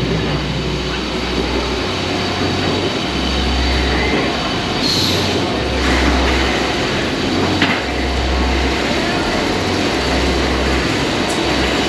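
Iron Gwazi roller coaster train rolling slowly into the station along its steel track. It makes a continuous rumble with a low pulse about every second and a half, and a few short clicks near the end.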